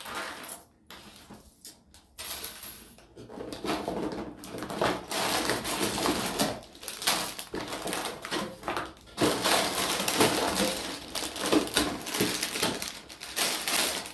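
A cardboard LEGO box being opened and plastic bags of LEGO bricks handled: crinkling plastic and small rattling clicks of loose bricks, quiet at first and busy from about two seconds in.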